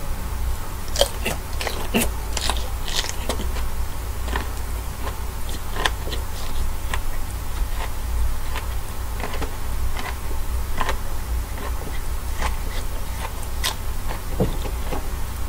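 A person biting into and chewing a peeled, cooked king black tiger prawn tail close to the microphone: irregular mouth clicks, busiest in the first few seconds. A steady low hum runs underneath.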